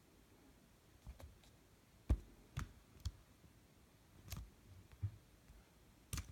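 Keys of a Bluetooth keyboard being pressed one at a time: about eight separate, irregularly spaced clicks, the loudest about two seconds in.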